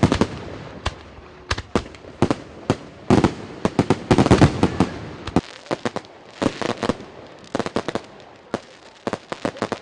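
Fireworks display: a rapid, irregular series of sharp bangs from exploding shells, densest about three to five seconds in.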